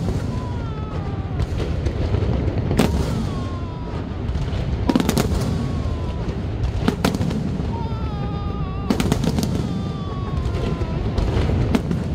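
Aerial fireworks shells bursting in a large display: a sharp bang about every two seconds, some in quick clusters, over a continuous low rumble of distant explosions.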